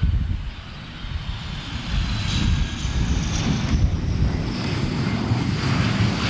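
Jet engine of a MiG-21UM two-seat fighter trainer running at full afterburner on takeoff: a loud, steady rumble with a faint high whine that slowly falls in pitch.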